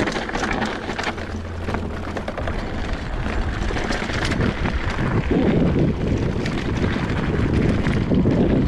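Wind buffeting the camera microphone as a mountain bike rolls fast down a dirt singletrack, with tyre noise on the dirt and many small clicks and rattles from the bike.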